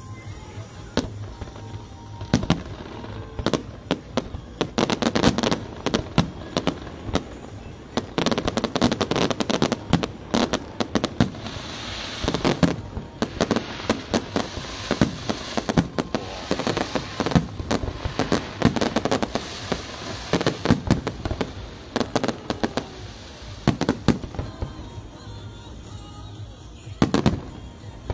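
Fireworks display: aerial shells bursting in a rapid barrage of bangs, sparse at first, then thick and overlapping through the middle with crackling from glittering shells, thinning out again toward the end.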